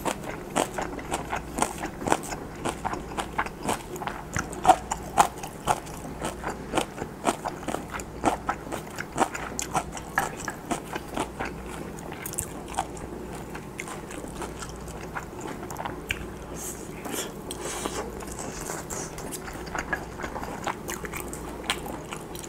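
Close-miked chewing of pan-fried Spam with rice and stir-fried kimchi: quick, wet, crunchy mouth clicks, dense for the first half and sparser in the second.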